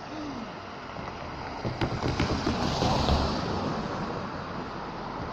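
Road traffic at a railway level crossing: a car's engine and tyre noise build from about two seconds in, with a few sharp clicks as it comes over the crossing.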